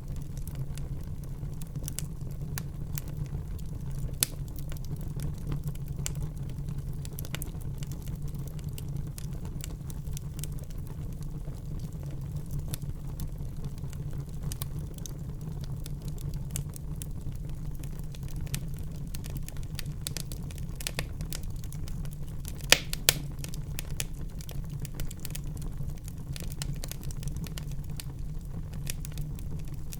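Wood fire burning in a fireplace, a steady low rumble of flames with constant small crackles and a few louder pops, the loudest a pair of sharp pops about 23 seconds in.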